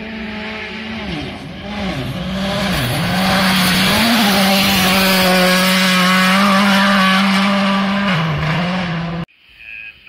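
Hyundai i20 R5 rally car's turbocharged four-cylinder engine at full throttle on gravel, its note dipping twice as the driver lifts and changes gear, then held loud as it passes with a hiss of loose gravel thrown from the tyres. The engine note drops once more, and the sound cuts off abruptly near the end.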